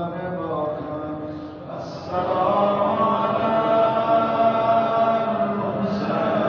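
A man chanting a Muharram lament over a microphone in long, drawn-out notes; the chant grows louder about two seconds in.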